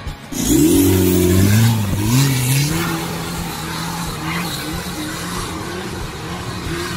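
Off-road vehicle engine revving hard as it climbs a dirt track. Its pitch sweeps up and down for the first couple of seconds, then it settles into a steadier, wavering drone.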